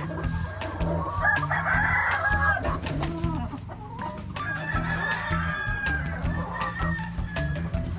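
Gamefowl roosters crowing, with clucking between the crows: one long crow starts about a second in and more crowing follows past the middle.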